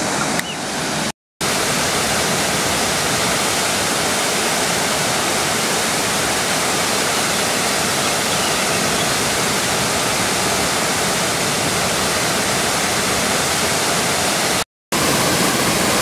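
Large cascading waterfall: a steady, even rush of falling water, broken by two brief drops to silence, about a second in and near the end.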